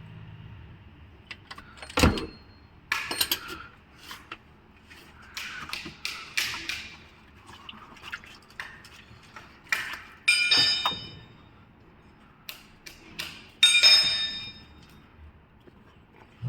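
Metal tools knocking and clinking under a car while its spin-on oil filter is worked loose: a sharp knock about 2 s in, scattered clatter, and two ringing metallic clanks about 10 and 14 s in.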